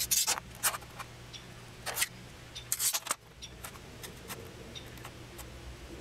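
A steel ruler sliding and a pencil scraping on a thin Baltic birch plywood sheet as it is marked out: several short scrapes, most in the first three seconds, with a few small ticks and a low hum beneath.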